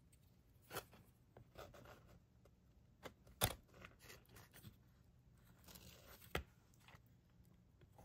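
Faint handling noises: a few sharp clicks and light knocks, the sharpest about three and a half seconds in and another just past six seconds, with soft rustling and scraping between.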